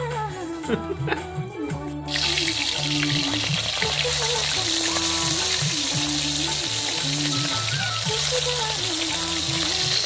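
Fish pieces sizzling as they fry in hot oil in a wok, a dense steady hiss that starts suddenly about two seconds in. Background music with a repeating bass line runs underneath.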